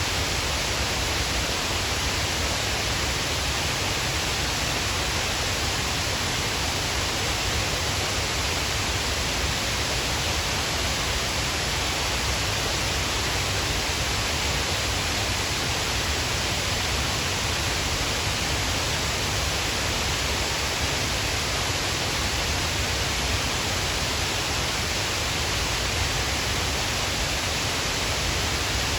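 Shiraito Falls, a broad curtain of many thin cascades, pouring into its pool: a steady, unbroken rush of falling water.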